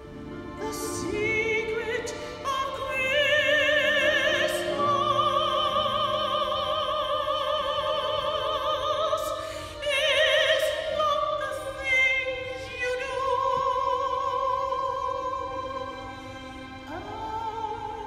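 Operatic soprano singing with a wide vibrato over a small orchestra, holding a long note for about six seconds, then going on in further sustained phrases.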